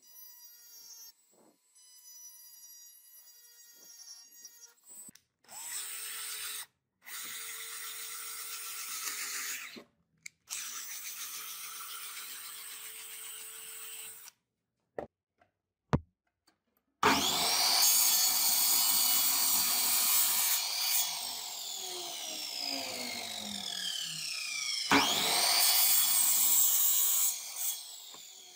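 Power tools in a workshop, in short edited takes. A handheld rotary tool whines faintly against a brass sword guard, and a power tool runs with a steady whine for several seconds. Then a mitre saw spins up and cuts a wooden handle blank twice, loud, its pitch falling away after each cut.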